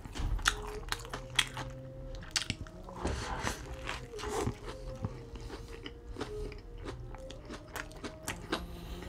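Close-miked mouth sounds of a man eating a Burger King Whopper with cheese: moist chewing and lip smacks, with a fresh bite into the burger's bun and patty about three to four seconds in.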